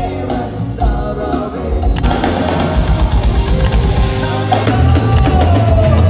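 Live band music: singing over drum kit, bass and guitars, with an abrupt change in the mix about two seconds in and a held sung note near the end.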